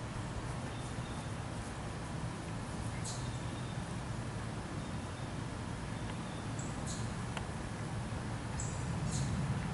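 Steady outdoor background rumble, with a few brief high-pitched chirps or clicks scattered through it.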